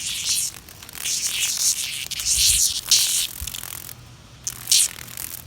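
Cicadas singing: a high-pitched rasping buzz that comes in repeated bursts of up to about a second, with short gaps between them.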